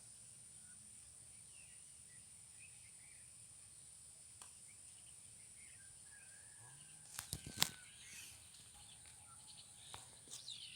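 Faint outdoor ambience with scattered bird chirps over a steady high tone. About seven seconds in, a quick cluster of sharp clicks, the loudest sounds.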